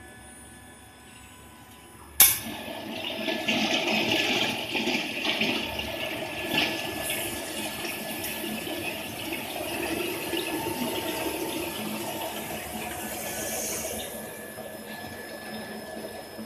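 Water spray quench on an induction hardening machine. A sharp click about two seconds in, then a steady rushing hiss of water spraying onto the hot shaft, easing off near the end.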